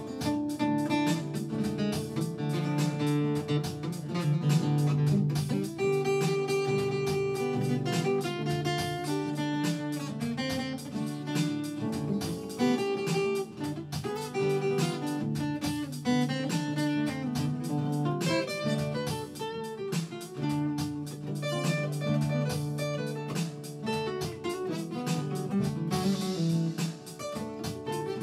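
Solo acoustic guitar playing a blues instrumental break: quickly picked notes over a steady low bass note.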